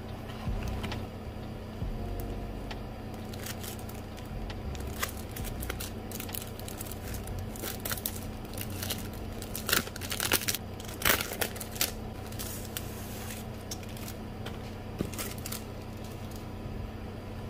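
A clear plastic sleeve crinkling and a sheet of handmade paper rustling as they are handled and the paper is slid out, in irregular spells of crackle, loudest a little past halfway.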